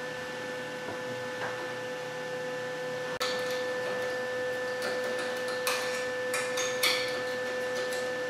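A steady electrical hum on one fixed pitch. From about three seconds in come scattered light clicks and scrapes of a pointed hand tool working against the sheet-metal panel.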